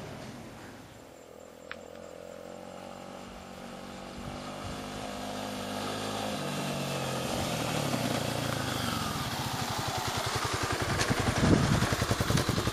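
Kawasaki KLX250 single-cylinder four-stroke dirt bike engine growing louder as the bike approaches, its pitch rising and falling, then running close by with a rapid, even thumping beat near the end.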